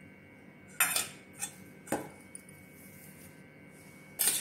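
Steel utensils clinking against a stainless steel mixing bowl as powdered sugar is tipped in: four sharp metallic clinks, three in the first two seconds and a loud one near the end.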